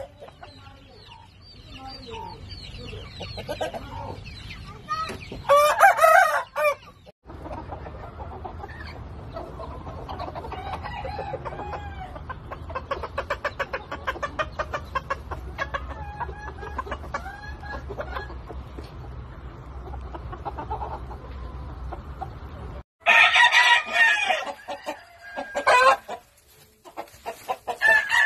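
Chickens: a rooster crows loudly about six seconds in, then a flock of hens clucks softly and rapidly over a low hum for about fifteen seconds, and loud calls break out again near the end.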